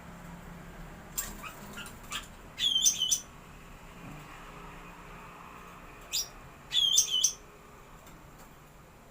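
Caged cucak ranting songbird calling: a few short high chips, then two loud phrases of quick ringing notes about four seconds apart.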